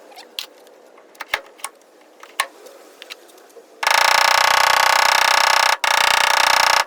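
A few light clicks and taps, then about four seconds in a loud, steady, whining power tool starts up and runs, with a couple of brief cut-outs.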